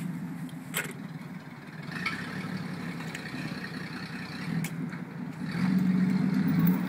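Car engine running steadily, with a couple of light clicks, then getting louder about five and a half seconds in.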